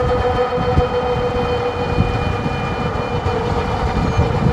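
Eahora Urban e-bike's electric motor whining steadily at cruising speed of about 28 mph, with wind and tyre rumble on the microphone underneath.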